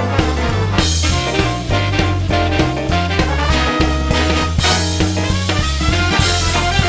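Background music: upbeat swing with brass and a steady drum beat.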